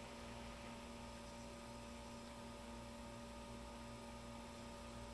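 Low, steady electrical mains hum with faint hiss; the vaping itself makes no clearly audible sound.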